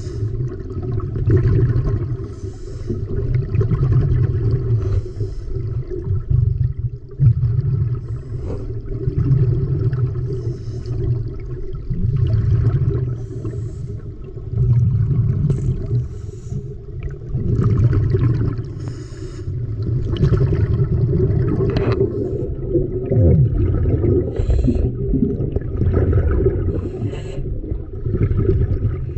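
Muffled water noise picked up by a camera held underwater. It comes as a dull low rumble that swells and falls every two to three seconds, with scattered faint clicks and rustles.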